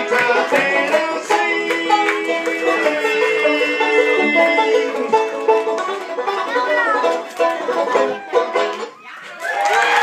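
Bluegrass music with fast banjo picking. It stops about nine seconds in, and voices start up near the end.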